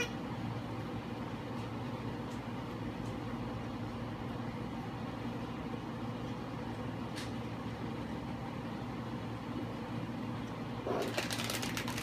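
Steady low hum of room background noise, with a faint tick about seven seconds in and a short run of clicks and rustling near the end.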